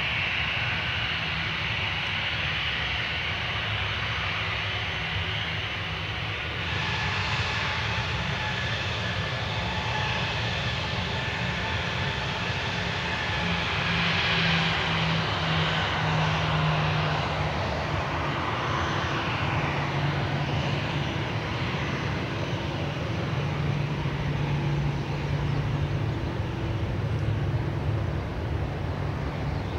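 The four CFM56 turbofan engines of an Airbus A340-300 running at low taxi power as the airliner taxis onto the runway: a steady jet whine over a low rumble. The whine brightens and grows slightly louder about six to seven seconds in, and its pitch shifts a little around the middle.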